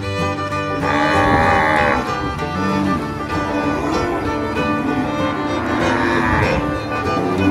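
Domestic cow mooing twice, a longer moo about a second in and a shorter one about six seconds in, over background string music.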